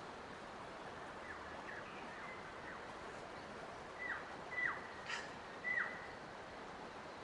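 A bird calling a run of short, downward-sliding whistled notes, faint at first, then four louder ones in the latter half, over a steady even hiss of natural background noise.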